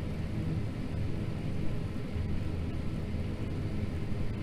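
John Deere T670i combine harvester running steadily while cutting winter barley: an even, low mechanical drone of engine and threshing gear.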